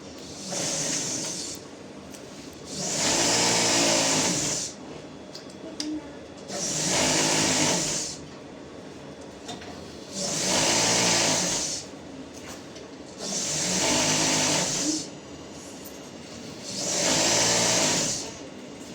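Electric sewing machine run in short stitching bursts, about six runs of a second or two each, every three to four seconds, with quieter pauses between them.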